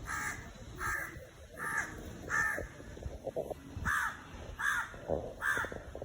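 Crow cawing: a run of four harsh caws, a short pause, then three more at the same steady pace.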